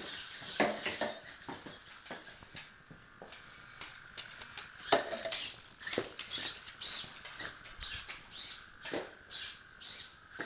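Hobby servos of a homemade walking robot whirring in short, high-pitched bursts as its legs step, with the feet clicking and tapping on a tile floor.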